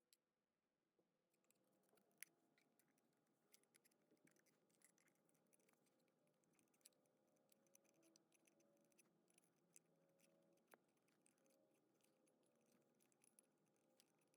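Near silence, with faint scattered clicks and ticks and one slightly sharper tick about two seconds in.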